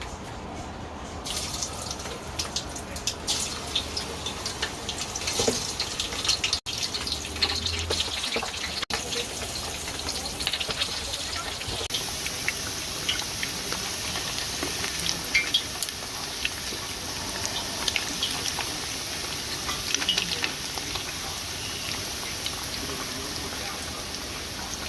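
Kitchen cooking sounds: a steady hiss full of small crackles, louder and brighter from about halfway through, broken by two short cuts.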